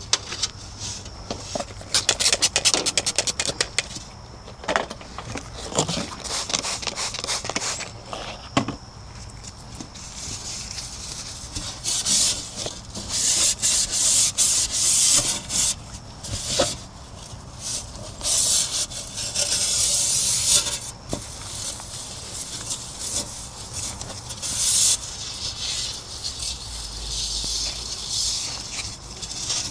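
Scrubbing and wiping a refrigerator's surfaces by hand, in repeated rubbing strokes, with a quick run of short strokes a couple of seconds in and longer, harsher scrubbing passes later.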